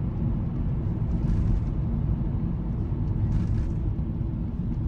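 Steady low rumble of a car driving, from its engine and tyres on the road, with two faint brief hisses, one about a second in and another past the middle.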